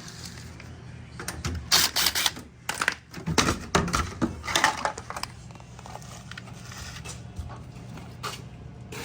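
A string of sharp clicks, knocks and clatters about one to five seconds in, over a steady low hum: hands and tools working on an opened dishwasher.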